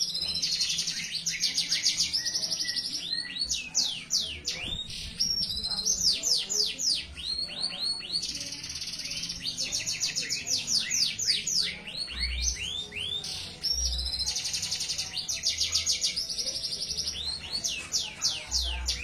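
Domestic canary singing continuously. Quick runs of falling whistled notes alternate with fast rolling trills, each held for a second or more.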